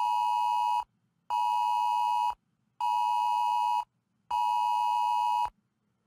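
Wireless Emergency Alert attention tone: a loud steady beep of two close pitches near 1 kHz sounding together, in an on-off cadence. A long tone ends just under a second in, then three tones of about a second each follow with half-second gaps.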